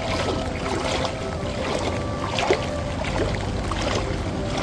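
Fast-flowing floodwater rushing, a steady noise with no pauses; the strong current of a river in flood running through the settlement.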